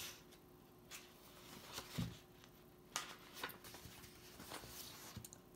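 Faint paper rustles and a few light taps of a picture book being opened and its pages turned by hand.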